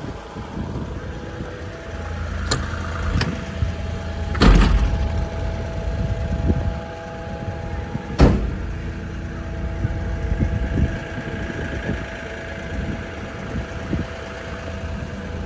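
JCB 60C-2 midi excavator's diesel engine idling steadily, with four sharp knocks: two light ones about two and a half and three seconds in, and two louder ones about four and a half and eight seconds in.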